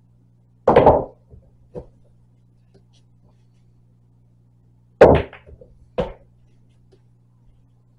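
Pool cue striking the cue ball and billiard balls clacking together on an MDF-bed pool table: a sharp shot with quick ball-on-ball clacks about a second in, then another shot about five seconds in followed by a single knock a second later.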